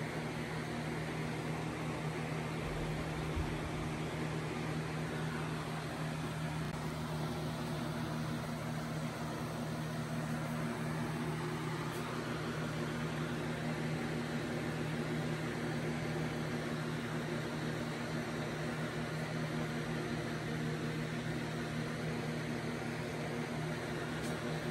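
A small electric motor running steadily with a low, even hum and a constant hiss.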